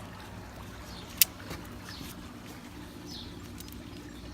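Outdoor background of a steady low hum with a few faint bird chirps, broken about a second in by a single sharp click, the loudest sound.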